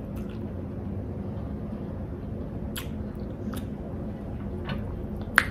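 Lettuce leaves crinkling as hands fold a lettuce wrap around shrimp and fillings, with a few short sharp clicks, the loudest near the end, over a steady low hum.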